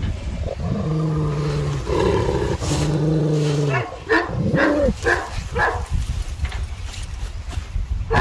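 Kangal shepherd dogs calling to each other through a fence: two long, low, steady calls of about a second each, then a run of about six short barks.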